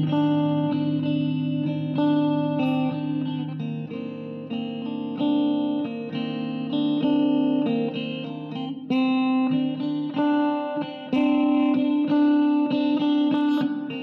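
Background music: a guitar picking out a run of plucked notes.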